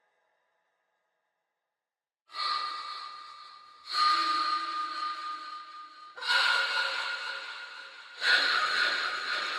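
High-pitched breath gasps processed with delay and reverb: after about two seconds of silence, four sharp gasps come roughly two seconds apart, each trailing off into a fading echo tail.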